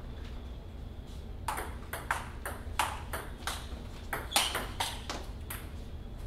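Table tennis rally: the ball clicks back and forth off paddles and table, about three hits a second. The rally starts about a second and a half in and stops about a second before the end, with the sharpest hit about four seconds in.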